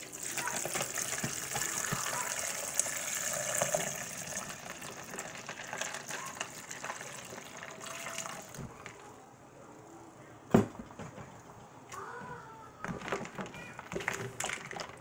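Hibiscus water pouring from a pot into a plastic pitcher over ice and cut strawberries: a steady splashing stream, loudest in the first four seconds and easing after that. A single sharp knock comes about ten and a half seconds in, and light clinks follow near the end.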